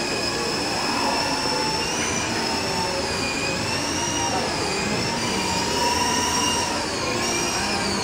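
Small radio-controlled toy helicopter flying, its electric motor and rotors giving a high whine that slowly wavers up and down in pitch as the throttle changes, over steady background noise.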